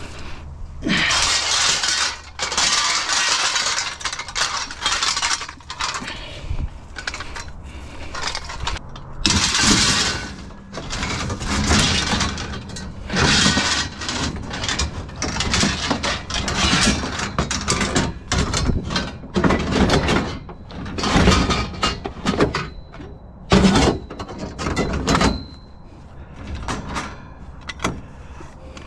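Black metal gazebo frame poles clattering and rattling against each other as they are gathered up and dropped into a truck bed full of scrap metal, in many separate bursts of a second or two.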